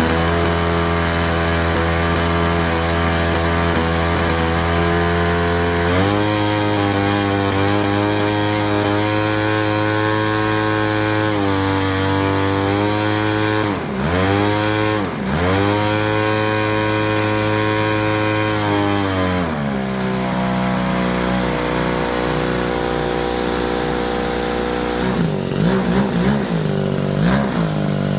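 A 52cc Turnigy single-cylinder two-stroke gasoline engine turning the propeller of a giant-scale RC Super Cub in a ground run-up before its first flight. It runs steadily and steps up in speed about six seconds in. It dips sharply twice just before the middle, then drops back to a lower speed. Near the end there are a few short throttle blips.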